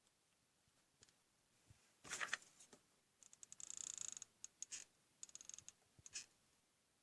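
Faint clicking and rattling of hands working with a hot glue gun and craft pieces. The noises come in short runs, the longest about three seconds in.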